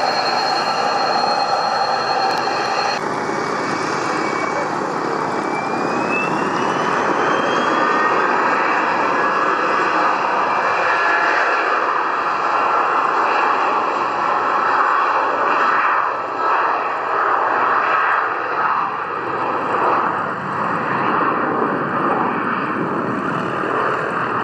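Twin rear-mounted Pratt & Whitney Canada PW306C turbofans of a Cessna 680 Citation Sovereign business jet spooling up for takeoff: a steady jet roar with a whine that rises in pitch a few seconds in, then the sustained noise of the takeoff roll.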